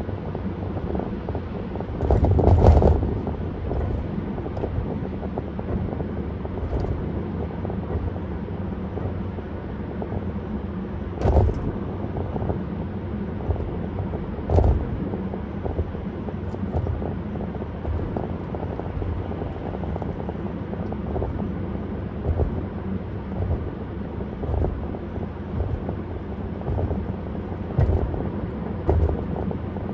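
A car driving along a highway: steady low road and tyre rumble, with a few short thumps, the loudest about two seconds in.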